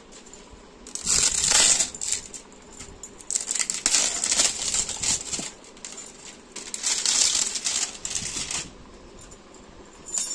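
Clear plastic wrapping crinkling and rustling in three bouts as a new cricket bat is pulled out of it.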